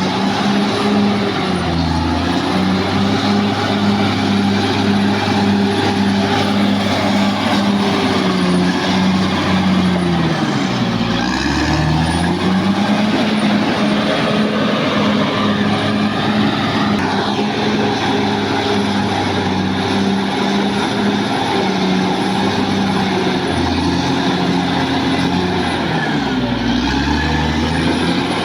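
Caterpillar D6R XL bulldozer's diesel engine running hard, with the broad noise of the working machine around it. Twice the engine speed sags and then picks back up.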